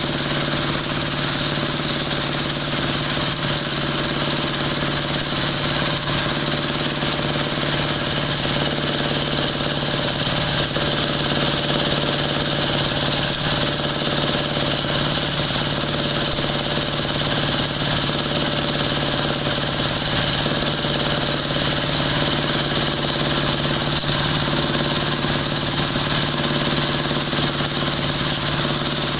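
Dowel machine for broom handles running steadily: a constant low hum under a dense whirring noise, unchanging throughout.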